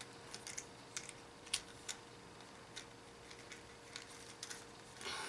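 Faint, scattered plastic clicks and taps of a Jazwares Drift action figure and its skateboard accessory being handled and posed. A soft rustle comes near the end.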